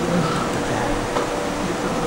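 Steady room hum and hiss from a computer lab full of running machines, with a faint steady tone underneath.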